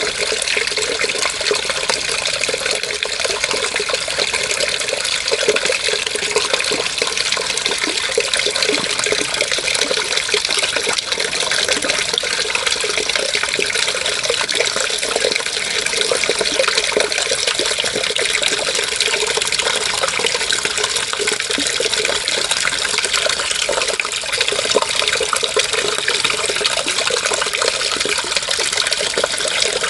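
Water running and splashing steadily, a continuous rush with no breaks.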